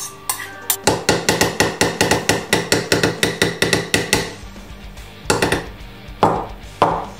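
Background music with spoon knocks as a metal spoon scrapes and taps food out of a ceramic bowl into a plastic chopper bowl. There is a fast run of knocks, about six a second, for some three seconds, then four separate knocks.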